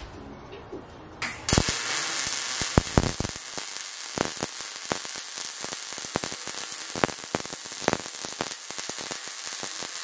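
Electric arc welding on a square-tube steel trailer frame: a steady crackling sizzle with frequent sharp pops. The arc strikes about a second and a half in and keeps going as one continuous weld.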